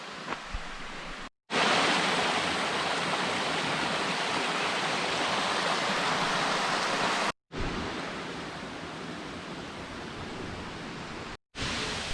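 Steady rush of falling water from a waterfall, louder in the middle stretch and quieter before and after, broken by two short dead gaps where the sound cuts out abruptly.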